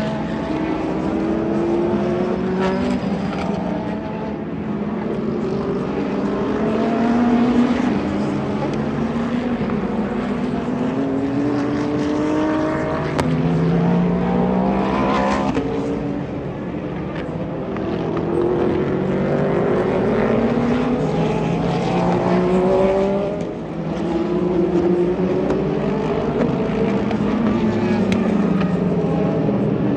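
Several sports-prototype and GT race car engines running at speed, overlapping as cars pass one after another; their pitch keeps climbing through the gears and dropping back at each shift.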